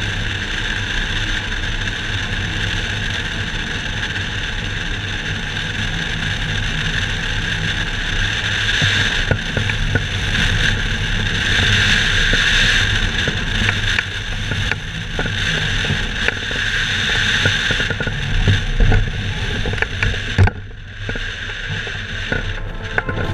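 Wind rushing over a hang glider's wing-mounted camera in flight, a steady loud rush that swells about halfway through. A few knocks come near the end, then the rush drops away suddenly as the glider lands and stops.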